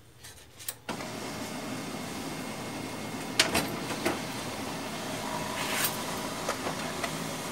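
HP LaserJet Pro MFP M125a laser printer printing a demo page: its motor starts about a second in and runs steadily, with several sharp clicks from the mechanism along the way.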